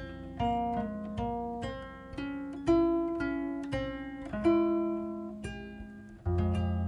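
Background music: a gently plucked acoustic guitar, single notes and chords ringing out and fading one after another.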